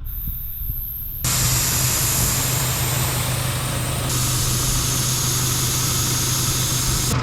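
Air hissing steadily out of a car tyre's valve as the tyre is let down to a lower pressure. The hiss starts suddenly about a second in, over the low hum of an engine idling.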